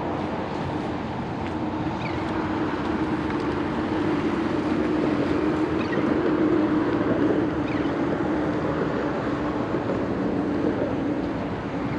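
An engine passing by: a steady drone with a low hum that swells about halfway through and eases off near the end.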